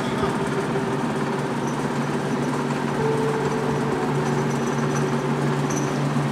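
Marley cooling-tower fan gearbox running on a belt-driven test stand, giving a steady mechanical hum and drone, with a higher tone joining for about a second around the middle.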